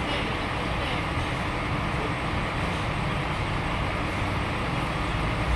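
Sawmill machinery running with a steady, even noise.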